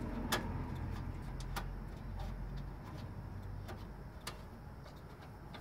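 Faint, scattered metallic clicks of a screwdriver backing out the retaining screw of a module in a metal network-switch chassis, a few clicks over several seconds, over a steady low rumble.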